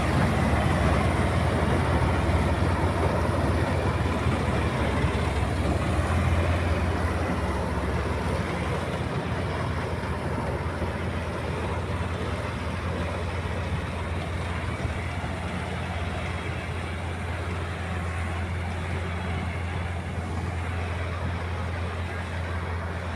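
Combine harvester running steadily while cutting wheat: a constant low engine drone with dense machine noise over it, slowly growing quieter.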